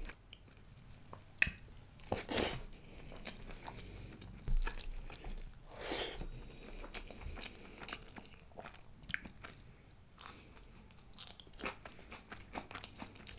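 Close-miked eating of mutton curry and rice by hand: chewing and wet mouth sounds, with scattered sharp smacks and clicks.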